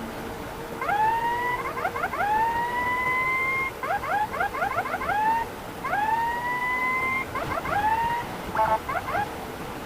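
Ambulance's electronic siren starting about a second in, alternating long rising wails with quick runs of short yelping chirps, then cutting off near the end. A brief buzzy blast comes just before it stops.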